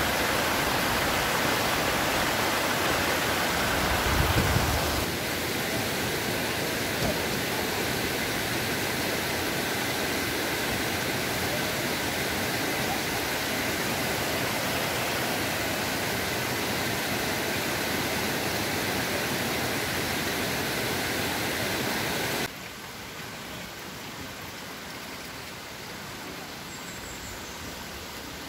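Shallow rocky stream rushing and splashing over boulders: a steady hiss of running water that drops sharply in level about three-quarters of the way through.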